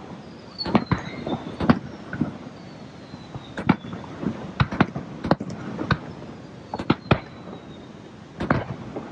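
Fireworks display: aerial shells bursting in a string of sharp bangs at irregular intervals, sometimes two or three close together, with the fizz of the bursts between them.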